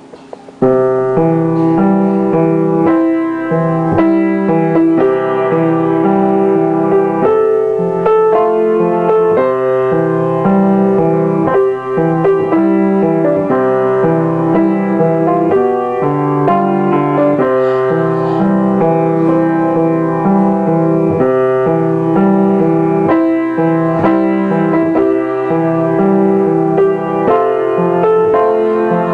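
Upright piano played solo: a continuous stream of notes, with a moving bass line under chords and melody, beginning about half a second in.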